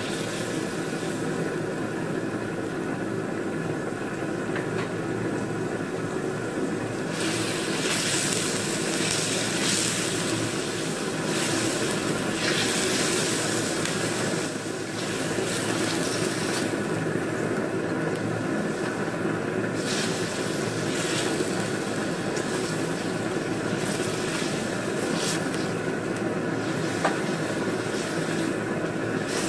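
Meat pieces sizzling in hot oil in a steel wok as they are sautéed, with a spatula now and then scraping against the pan. The sizzle grows louder and hissier from about seven seconds in and rises and falls as the meat is stirred.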